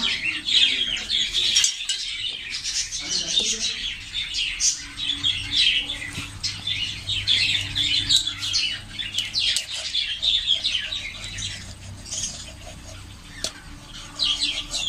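Many small birds chirping continuously, with a few sharp knife taps on a wooden chopping block.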